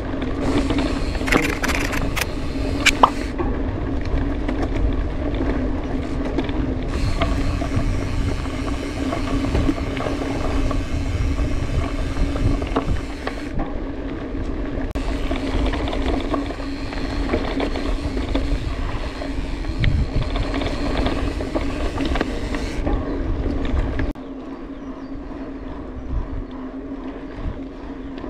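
Mountain bike riding along a trail, recorded by a bike-mounted action camera: steady rolling and wind rumble with a steady hum, and rattles and clicks from the bike over rough ground in the first few seconds. The rumble drops sharply about 24 seconds in.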